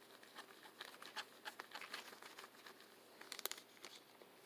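Faint crinkling of a thin plastic sandwich bag being handled, with a quick cluster of sharper crackles about three seconds in.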